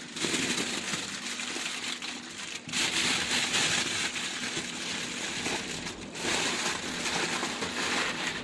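A cellophane sheet crinkling and rustling as it is handled and folded around a baking tray, in three long stretches with short breaks between them. A faint steady hum runs underneath.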